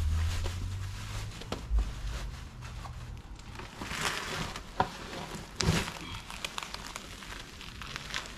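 Clear plastic wrapping crinkling and rustling as a new chrome wheel and tire is pulled out of it, with a few sharp crackles and clicks. There is a low rumble in the first second or so.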